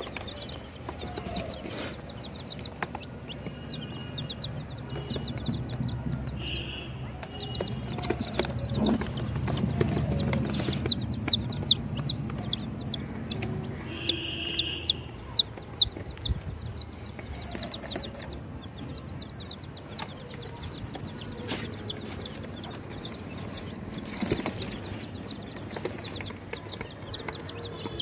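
Day-old chicks peeping continuously: a steady run of short, high, falling peeps, several a second, from a few chicks at once.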